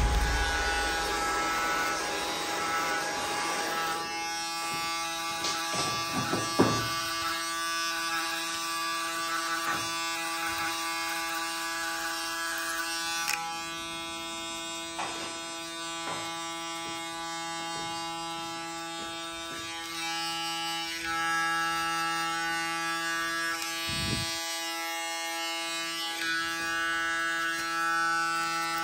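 Electric hair clipper buzzing steadily as it cuts a skin fade, including clipper-over-comb passes. A broad rushing noise fills the first few seconds, and a few brief clicks come through about 6 s and 24 s in.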